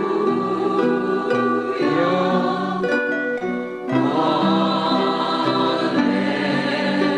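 Choral music with sustained sung chords that shift every second or so, breaking off briefly about three and a half seconds in before resuming.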